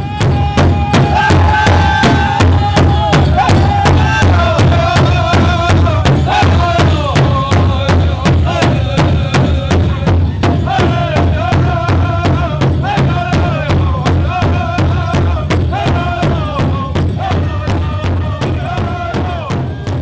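Powwow drum group: a big hand drum struck in a steady, even beat, with high-pitched voices singing a powwow song over it. The song opens on a long held high note.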